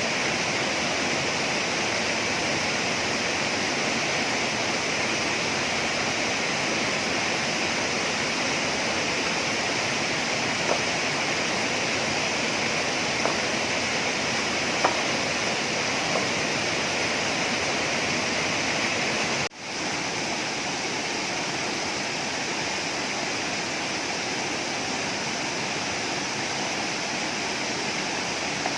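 Steady rush of falling water from a waterfall, with a few faint ticks in the middle and a brief cut-out about two-thirds of the way through, after which the rush carries on a little quieter.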